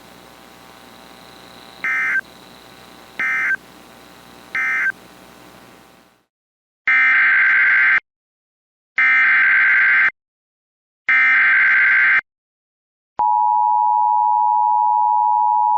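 Emergency Alert System data and tones. First come three short data chirps about a second and a half apart over a faint hum, the end-of-message code closing the previous alert. After a pause come three loud one-second warbling SAME header bursts. About two-thirds of the way in, the steady two-tone EAS attention signal starts, announcing a new warning.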